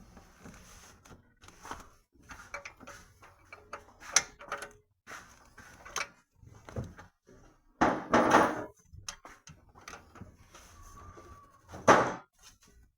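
Scattered metal clicks, scrapes and knocks of a hand tool working in an engine's open valvetrain as a rocker arm is levered off with an L-shaped key, with louder clatters about 4, 8 and 12 seconds in, the one near 8 seconds lasting about a second.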